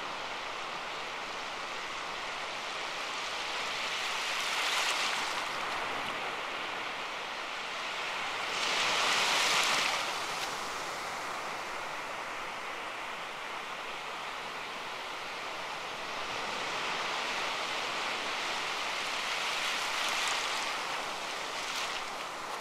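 Soft rushing noise that swells and fades in slow waves, loudest around 9 to 10 seconds in, with a faint steady high tone underneath: a background ambience like surf washing in.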